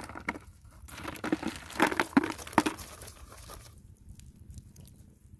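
Dry plant stalks rustling and crackling in a wire mesh trap as it is handled: a run of crackles over the first three seconds, then only faint scattered ticks.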